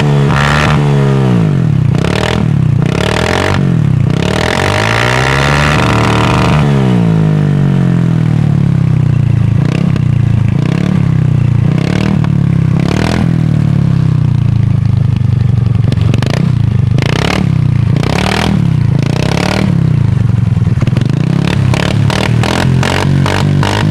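Honda Activa 125 scooter's single-cylinder engine, fitted with an aftermarket Akrapovic exhaust, revved up and down over and over. Sharp popping backfires crack from the exhaust, coming more often and in quick runs later on.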